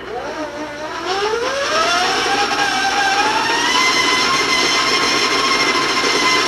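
Electric stand mixer switched on to cream cut-up butter: its motor whine rises in pitch over the first two seconds as it speeds up, then holds steady and loud.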